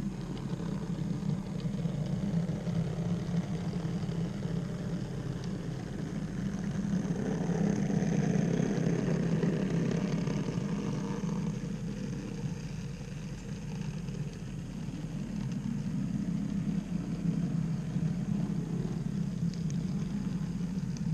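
N-scale model freight train running on the layout: a steady low motor hum with the rumble of wheels on the track, louder for a few seconds midway as the wagons pass nearest.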